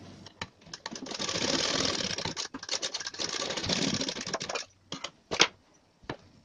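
Sewing machine stitching down a folded fabric piece in two runs, about one and a half and two seconds long, with a brief pause between, then stopping. A few sharp clicks follow.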